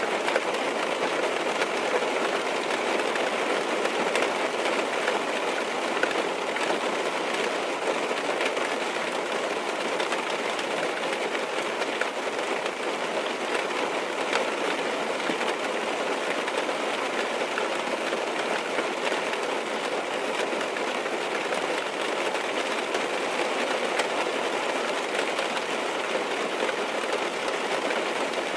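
Rain falling steadily on a car, heard from inside the cabin: an even hiss of rain with a fine patter of drops and no let-up.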